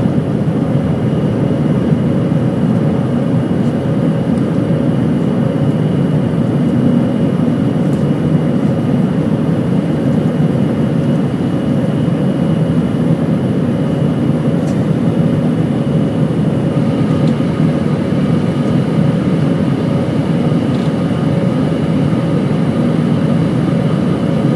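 A vehicle running steadily: a loud, even low rumble with a few faint, steady whining tones above it. One more tone joins about two thirds of the way through.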